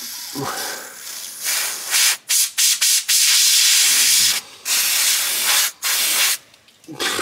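Aerosol spray can hissing in several bursts, the longest about a second and a half, as solvent is sprayed through its straw into the dirt-packed square socket of a differential plug.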